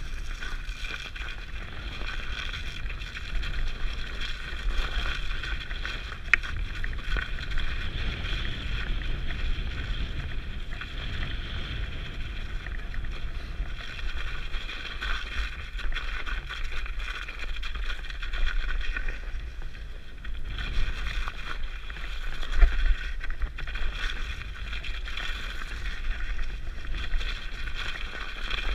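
Mountain bike riding down a snowy forest trail, heard from a helmet-mounted camera: a steady rush of wind on the microphone and rumble from the bike, with tyre hiss through the snow. A louder bump comes a little over three-quarters of the way through.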